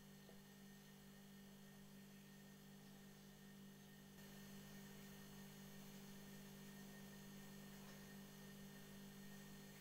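Near silence: a faint steady hum with light hiss, stepping up slightly about four seconds in.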